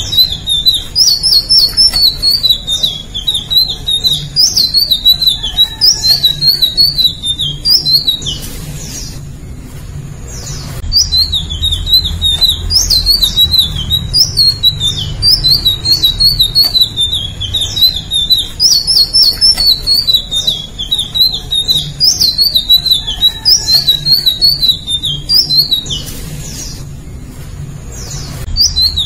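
Indigo flycatcher (Eumyias indigo) singing: long, fast runs of jerky, high twittering notes, broken twice by pauses of about two seconds.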